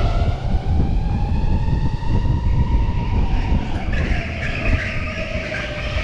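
Electric go-kart's motor whining, the pitch rising as it speeds up, falling about five seconds in as it slows, then climbing again, over a low rumble from the kart on the track.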